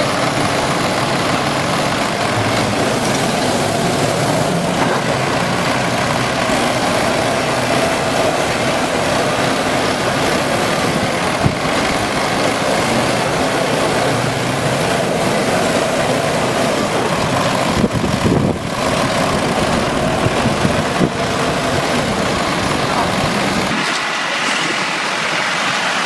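Farm tractors' diesel engines running steadily under load in a tug of war, under a dense rushing noise. Near the end the sound changes abruptly and the deep rumble drops away.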